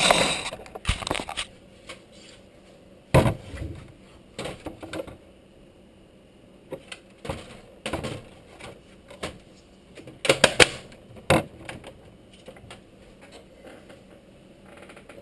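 Irregular clicks and knocks of a computer case's front cover being handled and fitted back on, loudest about three seconds in and again around ten to eleven seconds in.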